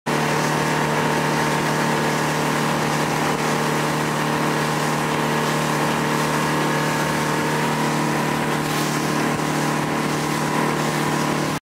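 Mercury 60 hp outboard motor running at a steady speed, an even drone with a broad hiss over it, cut off abruptly near the end.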